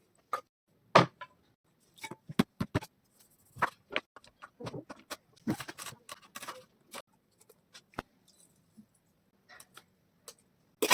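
Irregular clicks, knocks and clatter of kitchen utensils and containers being handled, about a dozen separate short strikes with gaps between them.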